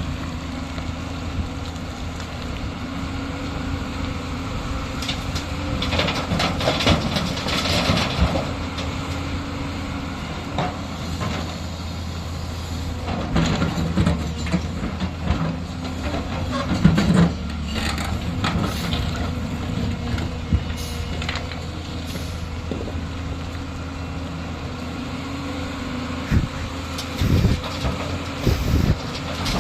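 Diesel engine of a JCB excavator running steadily while loading a dump truck, with several louder clattering bursts as material is dumped into the truck's steel bed and a few heavy thumps near the end.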